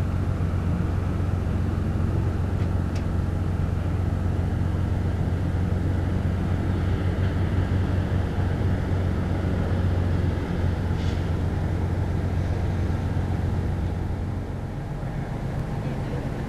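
Steady low hum of the moored car ferry Kuniga's engines running at the quay, easing slightly about fourteen seconds in.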